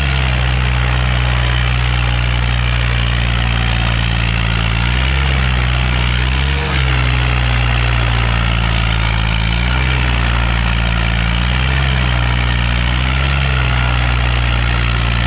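Swaraj 855 FE tractor's three-cylinder diesel engine running hard under heavy load as it drags two harrows, its note shifting up and down several times as it labours.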